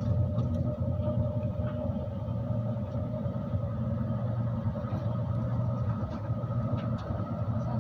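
Passenger train running, heard from inside the carriage: a steady low rumble with a steady whine over it.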